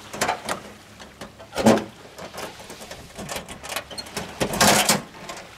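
Latches of a diamond-plate aluminum truck toolbox clicking and knocking as they are worked, with a louder knock a little under two seconds in. Near the end the side-opening lid swings out and down on its support chains with a longer metallic clatter, the loudest sound here.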